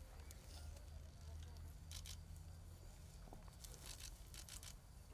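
Near silence: faint outdoor ambience with a low steady rumble, broken by a few brief soft rustles and clicks about two seconds in and again around four seconds in.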